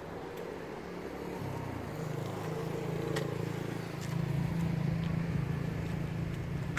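2012 Triumph Tiger 800's three-cylinder engine idling steadily. Its hum grows a little louder about four seconds in, with a few faint clicks.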